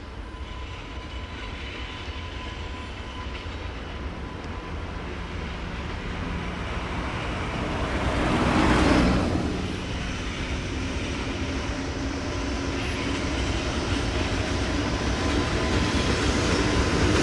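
JR Freight EH200 'Blue Thunder' twin-section electric locomotive pulling away with a freight train at low speed. The locomotive and wheels on the rails grow steadily louder as it approaches, with a brief swell about halfway through.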